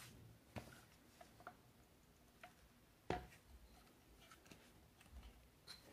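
Near silence broken by a few faint clicks and knocks of a plastic belt sander's housing being handled, with the clearest knock about three seconds in. The sander is not running.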